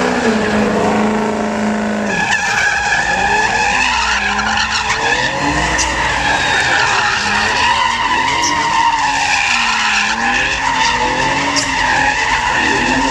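Tires squealing continuously as a vehicle spins donuts on pavement, over a revving engine. For the first couple of seconds a steady high-revving engine drone dominates; then a loud wavering squeal takes over.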